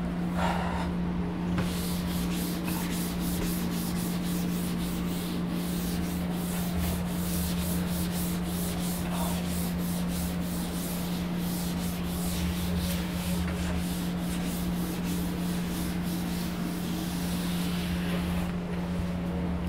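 A classroom writing board being rubbed with quick, repeated scrubbing strokes, several a second, stopping shortly before the end. A steady low hum runs underneath.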